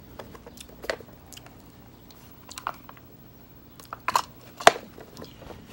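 Hands handling a black eyeglasses case and a small zippered pouch: soft rustling with scattered sharp clicks, the loudest a cluster about four seconds in.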